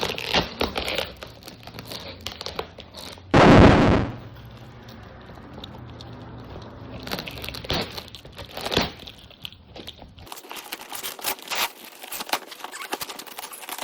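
Packaging being torn open and crumpled by hand: irregular crackling and crinkling, with one loud rip lasting about half a second near the start.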